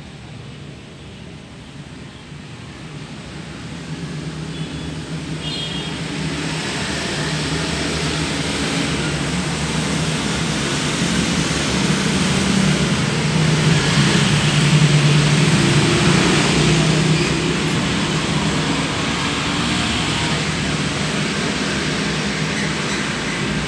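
Road traffic noise, a vehicle engine's hum swelling to its loudest in the middle and easing off a little near the end.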